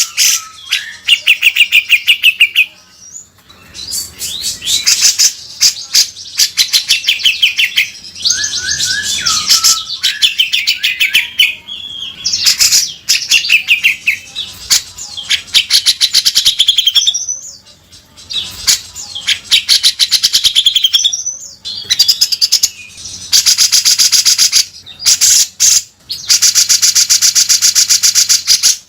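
Grey-cheeked bulbul (cucak jenggot) singing loudly in rapid chattering, trilling phrases broken by short pauses, with rough rasping buzzes ("beset kasar"). Near the end it gives a long harsh buzzy rattle.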